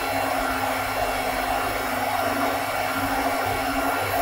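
Electric cooling fans running steadily: an even rush of air with a steady hum.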